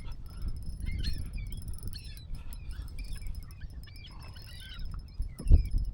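A feeding flock of seabirds calling, many short overlapping calls, over a low wind rumble on the microphone. A single sharp knock comes about five and a half seconds in.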